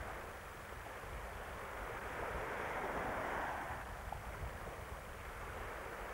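Wind buffeting the camcorder microphone over the wash of small waves on a sandy shore: a steady hiss with a low rumble that swells about halfway through and eases again.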